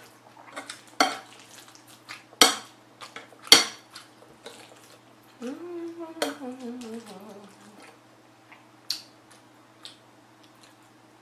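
Metal spoon clinking and scraping against a ceramic bowl while stirring and scooping black bean sauce through rice, with a few sharp clinks, the loudest about two and a half and three and a half seconds in.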